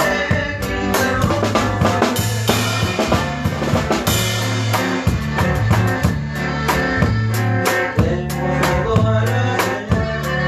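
A live regional Mexican conjunto plays a corrido without singing. A drum kit keeps a steady beat under a walking bass line.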